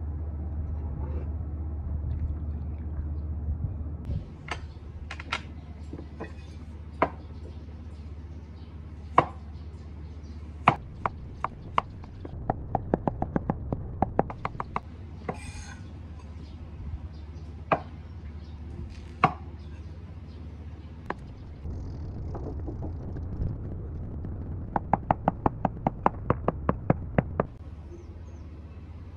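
Cleaver chopping on a wooden end-grain cutting board: scattered single knocks, then quick runs of about five chops a second, twice, as carrots and then shrimp are cut. A low rumble underlies the first few seconds.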